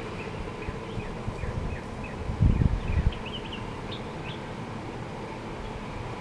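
A songbird singing a varied string of short chirps and quick up-and-down notes. About two and a half seconds in, low rumbles of wind hit the microphone.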